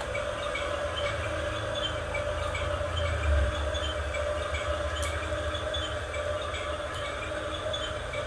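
Small electric motors and gearing of radio-controlled model construction machines whirring steadily, with a constant mid-pitched hum over a low rumble. The rumble swells briefly about three seconds in.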